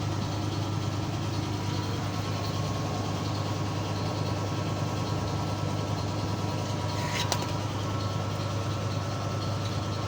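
Car engine idling steadily, with one sharp click about seven seconds in.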